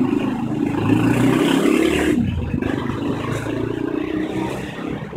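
A motor vehicle engine running close by on the street, a steady low hum whose pitch shifts a couple of times, over general street noise.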